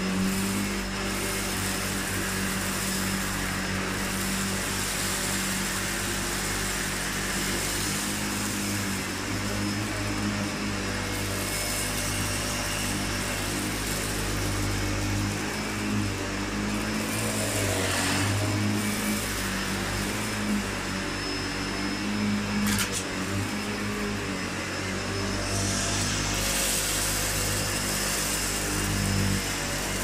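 SEBO Felix upright vacuum cleaner running at full suction with its roller brush on, worked over cut pile carpet and drawing up piles of hair, lint and sawdust. A steady motor drone with swells of rushing noise several times as it takes in the dirt.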